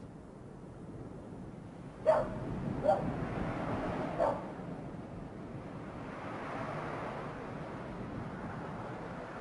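A dog barking three times, short sharp barks a second or so apart, over steady background noise.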